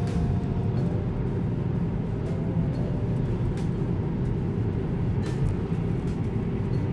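Steady road and tyre rumble heard inside the cabin of a Tesla Model 3, an electric car with no engine note, cruising at about 100 km/h on a highway.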